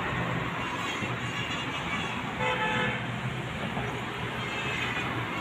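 Steady road traffic noise with one short vehicle horn toot about two and a half seconds in.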